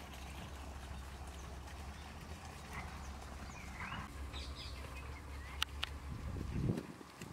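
Outdoor rural ambience: a low steady rumble with a few short chirps, then two sharp clicks and a low thump near the end, after which the rumble cuts off.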